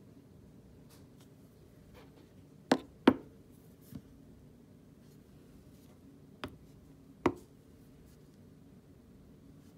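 Sharp clicks at uneven spacing over a faint steady low hum: a loud pair close together about three seconds in, a faint one a second later, and two more a few seconds after.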